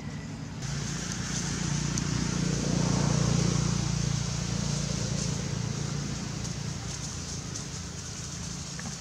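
A vehicle's engine drone that grows louder to a peak about three seconds in and then slowly fades, as of a vehicle passing.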